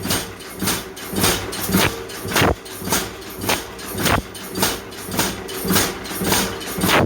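Hammering on wrought iron: an even run of blows, just under two a second, over a steady machine hum.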